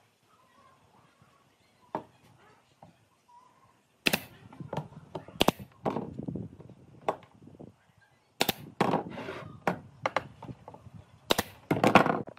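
Wooden pieces being handled on a workbench: a heavy wood slab and its pine stand knock and scrape against the bench top in a string of sharp knocks with sliding in between, louder from about four seconds in.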